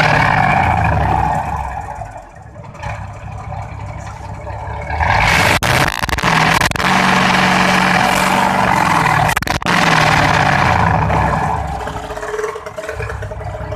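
Mitsubishi Fuso 8DC9 naturally aspirated V8 diesel being free-revved: held high at first, dropping back about two seconds in, then a second long rev from about five seconds to about eleven seconds, before falling back toward idle.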